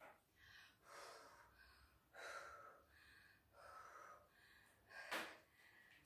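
Faint, heavy breathing of a woman catching her breath after a dance workout: a run of breaths about one a second, with a sharper, louder one about five seconds in.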